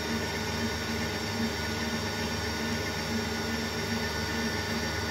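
Electric stand mixer running steadily at one speed, its whisk beating crepe batter in the bowl.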